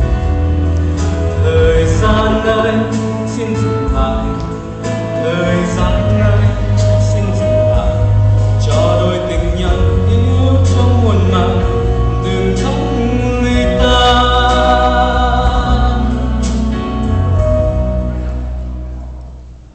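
A man singing a Vietnamese love-song medley into a microphone over instrumental accompaniment with a steady bass; the music fades down near the end.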